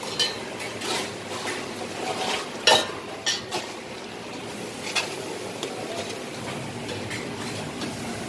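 Stainless steel mugs and spoons clinking and knocking on a steel counter: a handful of sharp clinks, the loudest a little under three seconds in, over a steady hiss.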